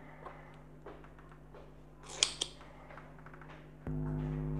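Soft handling clicks of a soldering iron and circuit board, then a sharp double click about two seconds in as a spring-loaded desoldering pump is handled and readied. Steady background music tones come in just before the end.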